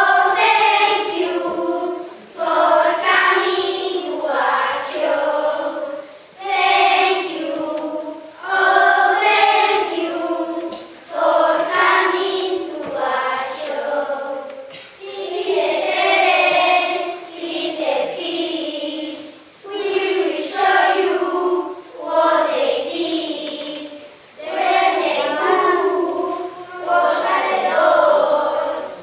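A group of children singing together in unison, phrase after phrase with short dips for breath between them.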